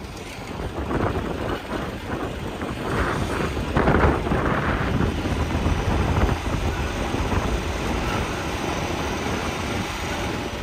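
Car driving over a rough, rutted dirt track, with engine and tyre rumble and wind buffeting the microphone. It swells briefly about four seconds in.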